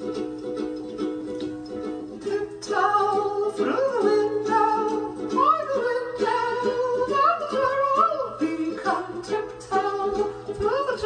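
Music with a plucked-string accompaniment; a gliding melody line comes in about three seconds in.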